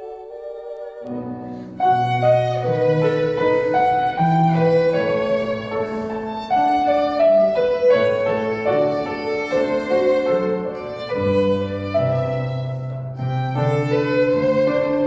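Instrumental background music: a bowed-string melody over piano and bass accompaniment. A single held line at first gives way to the fuller accompaniment about a second or two in.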